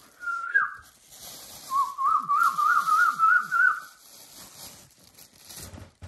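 Whistling: a short whistle that dips at its end, then a longer warbling whistle that wavers quickly up and down and ends about two-thirds of the way through. Light plastic-bag rustling runs beneath.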